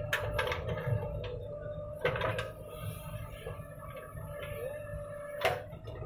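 JCB 3DX backhoe loader's engine running steadily under hydraulic load with a steady whine, as the bucket tips soil into a tractor trolley and swings back to the pile. Sharp clanks and thuds come at the start, about two seconds in and near the end.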